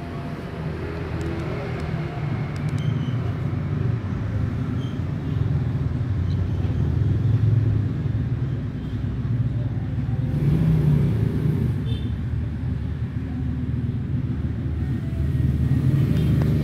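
A steady low rumble that swells and eases a little, with a few faint small clicks over it.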